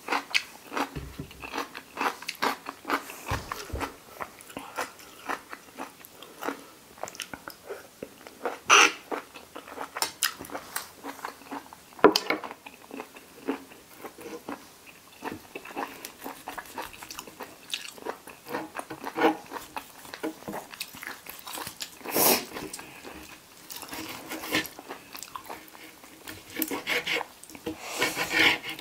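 Close-up eating sounds: raw cucumber and pig's ear being bitten and chewed, with irregular crunches and wet chewing and a few louder bites.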